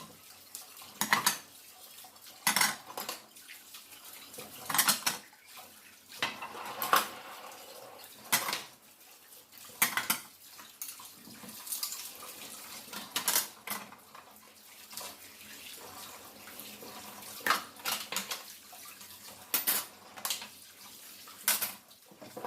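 Dishes and cutlery being handled and set down, sharp clinks and clatters every second or two.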